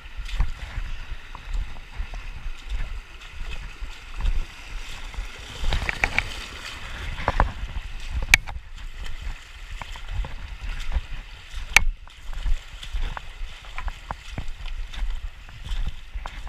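Wading footsteps sloshing through shallow river water, uneven and repeated, with low bumps on the microphone. Two sharp clicks stand out, about halfway through and again a few seconds later.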